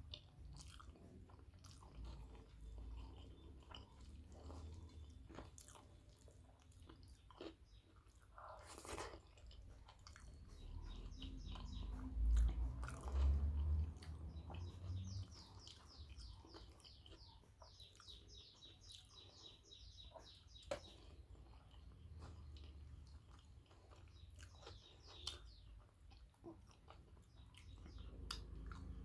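Close-miked eating sounds: chewing of rice and curry with wet mouth clicks and smacks. About midway there is a run of quick, high ticks.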